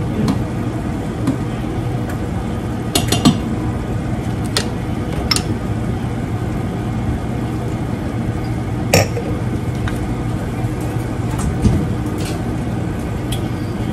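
Cooking sounds: several short clinks and taps of a utensil on metal pots and of glass, one about three seconds in ringing brightly, over a steady low hum.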